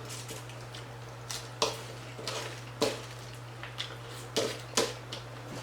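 Irregular light clicks and knocks of dishes and utensils being handled at a table, over a steady low hum.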